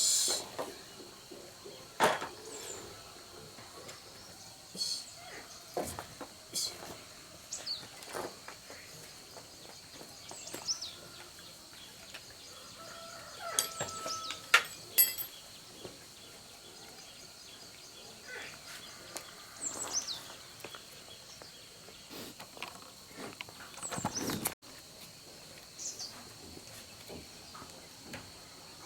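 Scattered clicks and light knocks of work on small metal parts, with birds chirping and a steady high insect drone behind.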